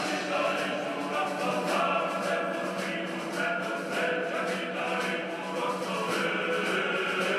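Music with a choir of chanting voices holding long notes.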